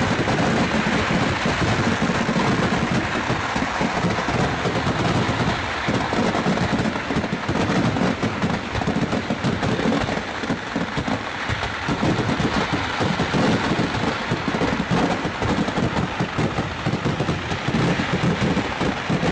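Kerala temple fireworks (vedikkettu) going off in a dense, continuous barrage, the bangs following so fast that they run together into one unbroken crackle.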